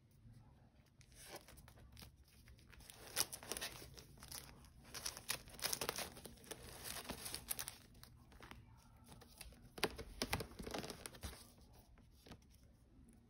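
Vinyl record sleeves rubbing and crinkling against each other as they are flipped through one by one in a rack, an irregular run of rustles with soft knocks as each album tips over.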